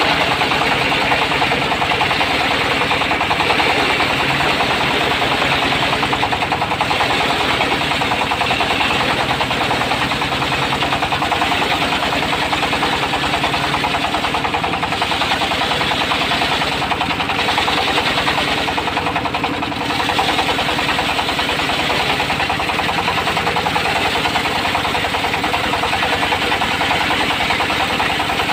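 Diesel engine of a portable circular sawmill running steadily with a rapid, even knocking beat, along with the sound of the spinning saw.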